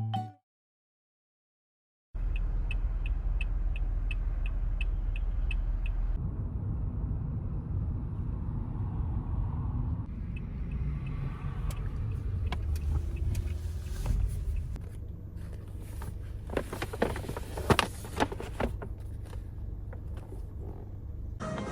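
Low steady rumble of a car, with an even ticking for a few seconds after the rumble begins, and a cluster of clicks and knocks near the end.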